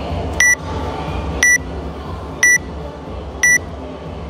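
Workout countdown timer beeping once a second: four short, high, identical beeps counting down to the start of a timed workout.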